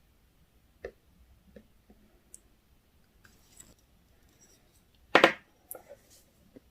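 Clear slime being handled, giving a few small sticky clicks and pops, then a louder, longer squish about five seconds in followed by a few more small clicks.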